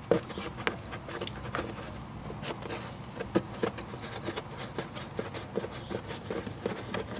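Hand work on a wheel-well liner fastener: irregular light clicks and rubbing as fingers handle the fastener and the plastic liner around it.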